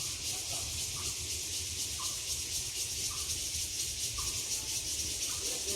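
Steady high-pitched chirring of insects, with a faint fast pulse to it, over a low rumble.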